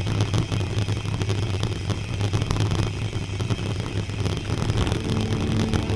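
Car driving: steady road and engine noise with a low hum. Music starts near the end.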